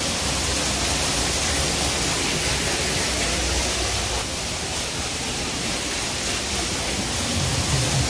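Steady rushing of a waterfall spilling over rockwork, easing slightly about halfway through.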